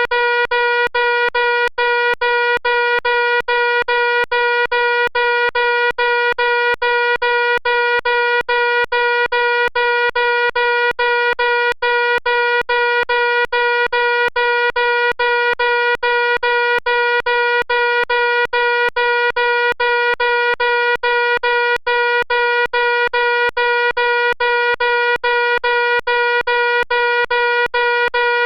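Fire alarm sounding continuously: a loud, steady buzzing tone with a quick, even ticking running through it.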